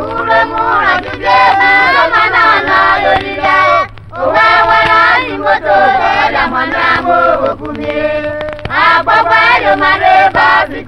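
A chorus of voices singing a traditional Okpe dance song in phrases, with a short break about four seconds in and a quieter stretch a little before the end. A low steady hum sits underneath.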